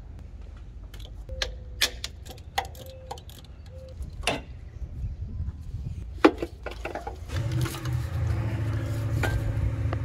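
Metal clicks and clinks of tools and fasteners being handled in a car's engine bay, scattered and irregular, with one sharp knock about six seconds in. From about seven seconds a steady low hum sets in.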